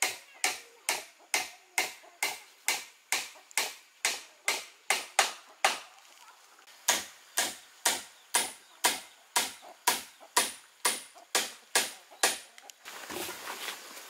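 Steady chopping blows, about two a second, each a sharp crack, with a pause of about a second midway; they stop near the end, giving way to rustling.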